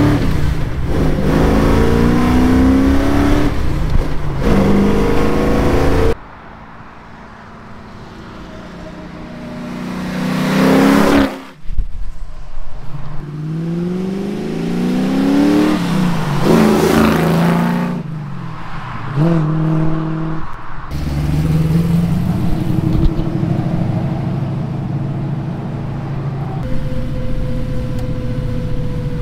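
A 1968 Camaro with a Chevrolet Goodwrench crate engine, Edelbrock upgrades and a new exhaust, accelerating hard. From inside the cabin the engine climbs in repeated rising sweeps through the gear changes of its 5-speed manual. About six seconds in, the sound switches to the roadside: the engine swells as the car approaches and passes at full throttle, twice. In the last third it is back inside the cabin, running steadier.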